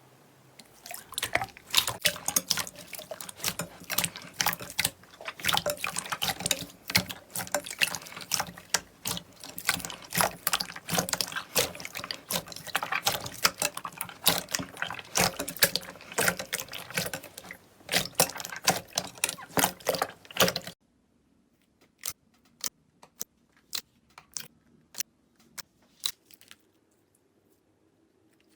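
Slime being squeezed and kneaded by hand, making a dense run of wet clicks and pops that stops abruptly about twenty seconds in. After that, single sharp clicks come about two a second.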